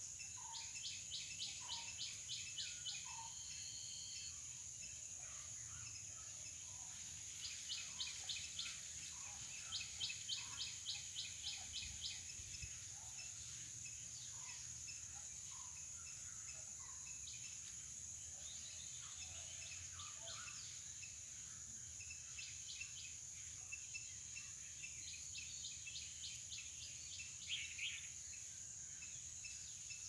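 Outdoor insect and bird ambience: a steady high-pitched insect drone, runs of rapid pulsed chirps lasting a second or two each, and scattered short bird calls.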